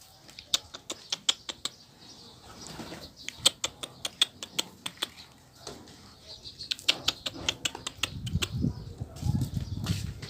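Pigeons in a loft: three bursts of sharp clicks and wing flutters, followed near the end by a few low throbbing sounds.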